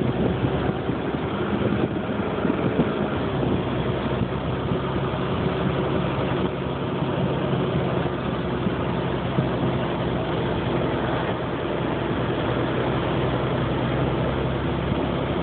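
Vehicle engine running with road noise, heard from inside the cab while driving: a steady hum with a low engine drone.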